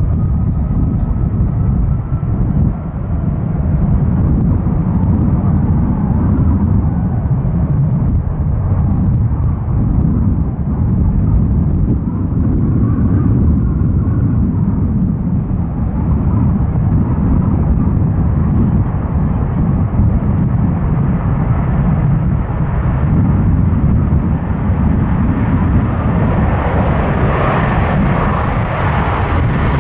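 Airbus A330-300's two Rolls-Royce Trent 700 turbofans at takeoff thrust during the takeoff roll: a steady, heavy rumble with a faint whine at the start. The sound grows brighter in the last few seconds as the airliner comes close and rotates.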